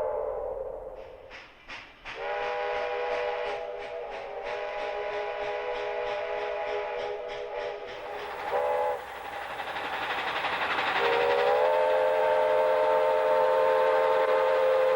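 Steam locomotive chime whistles blowing. A long multi-note whistle sounds for several seconds, then a short blast. After a brief gap a second long whistle swells up in pitch and holds steady.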